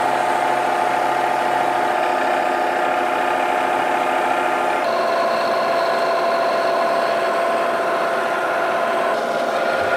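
Vertical milling machine with a long end mill cutting through an aluminum block: a steady, loud whine with a few tones that shift to a new pitch about halfway through and again near the end.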